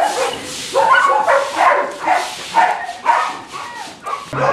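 Several shelter dogs barking over and over, the barks coming about every half second and overlapping at different pitches, easing off a little near the end.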